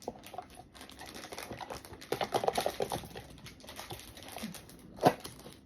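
Plastic toy packaging being rustled and handled, with many small clicks, a quick run of them about two seconds in, and one sharp snap near the end.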